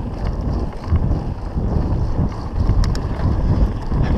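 Mountain bike riding fast down a dirt singletrack: wind buffeting the camera microphone over the rumble of tyres and the rattle of the bike on rough ground, with a couple of sharp clicks about two-thirds of the way in.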